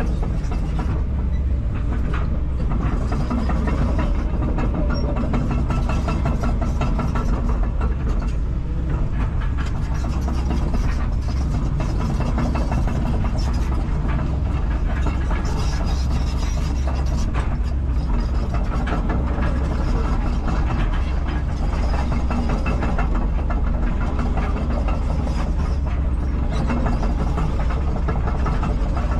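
Kobelco 210LC-9 excavator's diesel engine running steadily while the machine travels on its steel tracks.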